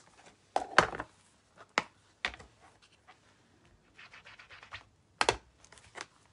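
Hard plastic clicks and knocks as stamping supplies are handled on the desk: an ink pad and a clear plastic case picked up, opened and set down. The loudest knock comes just under a second in, with a short scraping rustle about four seconds in.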